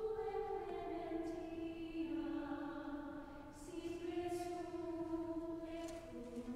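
Choir of nuns chanting a slow sacred melody in unison, long held notes moving step by step between pitches.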